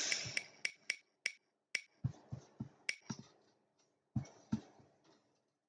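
Ticking of an online spinner wheel coming to rest, the ticks spreading further apart as it slows, with a few soft low knocks in between.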